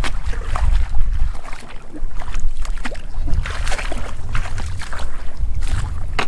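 Shallow paddy water splashing as a person wades through it, legs churning the water in irregular splashes and sloshes, over a steady low rumble of wind on the microphone.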